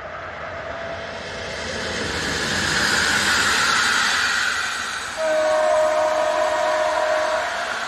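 Passenger train hauled by an electric locomotive running past: the wheel and rail rush builds, peaking about three to four seconds in. About five seconds in, a single horn blast sounds for about two seconds.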